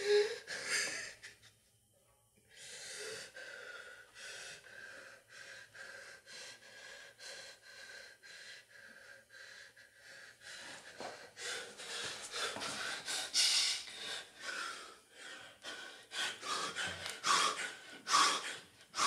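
A young man crying hard: sobbing with ragged, gasping breaths that come quicker and louder in the second half.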